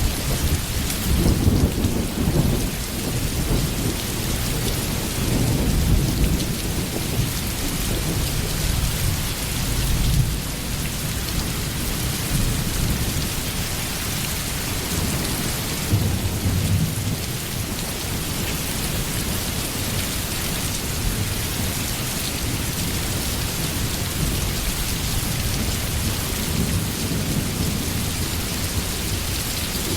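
Steady rain hissing, with low rolling rumbles of thunder that swell in the first ten seconds or so and again a little past the middle.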